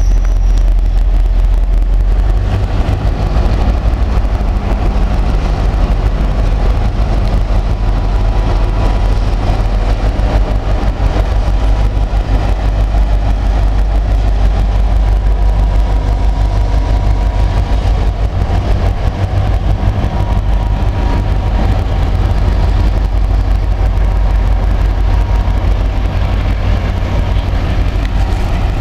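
Diesel train running with a loud, steady low rumble.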